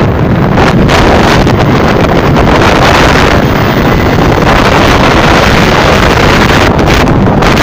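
Loud, steady wind rushing over the microphone on a moving motorcycle, with road and engine noise underneath.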